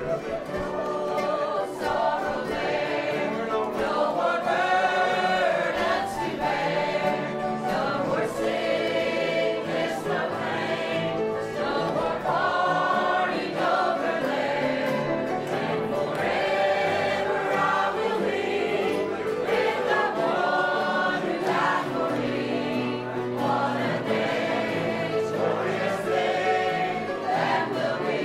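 Gospel song sung by several voices with acoustic guitar accompaniment, continuing without a break.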